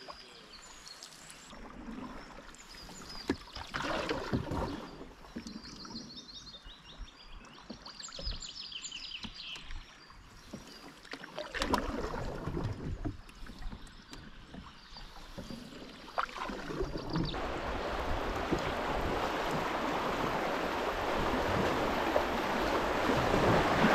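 Canoe paddle strokes splashing in calm river water, with birds chirping faintly. About two-thirds of the way through it gives way to the steady rush of fast, broken water as the canoe runs a riffle.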